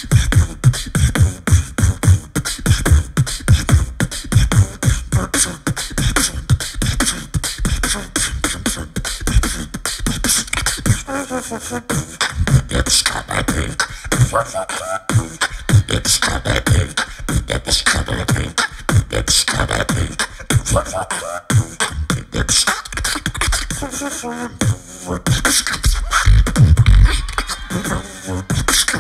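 Solo beatboxing into a handheld microphone: fast, dense kick-and-snare hits with deep bass, with some pitched vocal lines woven in around the middle and a heavier stretch of bass near the end.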